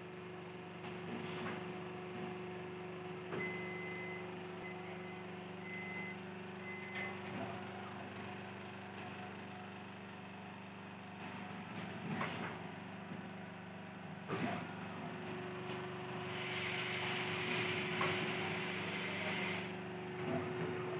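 Automatic USB-cable soldering machines running: a steady machine hum with scattered clicks and knocks. A few short high beeps come about four seconds in, and a few seconds of hiss near the end.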